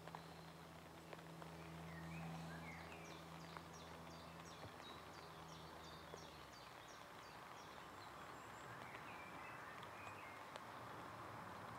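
A small songbird singing faintly: a quick run of repeated high, falling notes, about three or four a second, with a few softer warbled notes, over a low steady hum that stops about halfway through.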